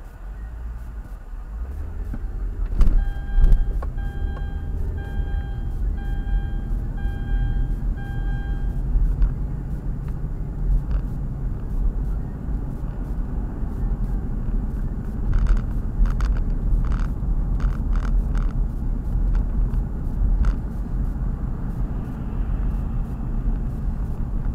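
Steady low rumble of a car driving, recorded inside the cabin by a dash cam's built-in microphone. Two loud knocks come about three seconds in, followed by about eight short electronic beeps, roughly one a second. Later a run of light ticks comes about twice a second.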